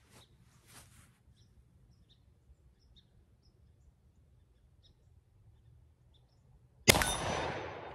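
Faint bird chirps over near quiet, then, about seven seconds in, a single loud shot from a Thompson Center Contender single-shot pistol, followed by a long fading echo and a steel gong ringing from the hit.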